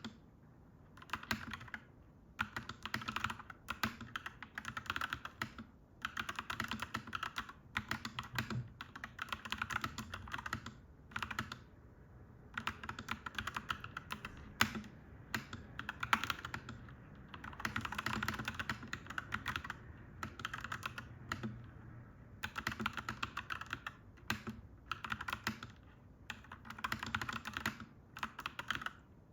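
Typing on a clacky mechanical keyboard: quick runs of key clacks in bursts of a second or two, broken by short pauses.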